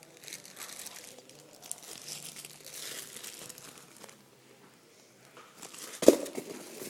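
Packaging crinkling and rustling as ceiling fan parts are handled, stopping for a moment, then a single sharp knock near the end.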